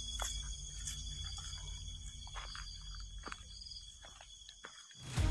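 Crickets chirping in a steady high-pitched trill, over a low rumble and a few faint clicks; the rumble fades out near the end.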